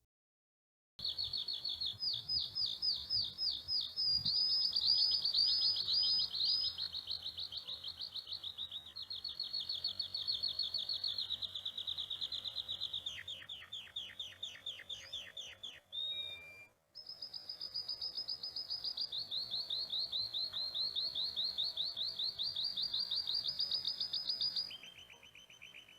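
A bird singing long runs of fast, evenly repeated high chirps, starting about a second in, with a brief break about two-thirds through and a shift to a lower pitch near the end.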